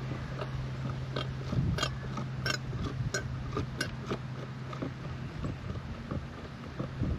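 Hand gear-lube pump being worked, its strokes clicking about every two-thirds of a second for a few seconds while 80W90 gear oil is pumped into an outboard's lower unit. A low steady hum underneath stops about halfway through.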